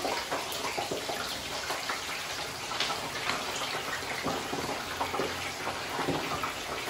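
Sliced potatoes frying in hot oil: a steady sizzle with many small crackles throughout.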